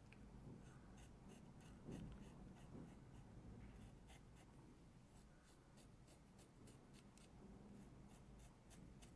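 Faint, quick scraping strokes of a dermaplaning razor blade drawn across facial skin, about two to three a second, shaving off fine hair and dead skin.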